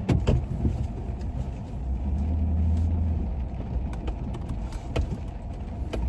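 Pickup truck driving slowly, heard from inside the cab: a low engine and tyre rumble that grows louder for a second or so in the middle, with a few light clicks.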